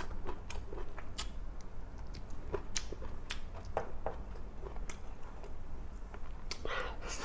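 Close-up eating sounds: a person chewing and biting food, with irregular wet smacks and small clicks of mouth and utensils over a low steady hum.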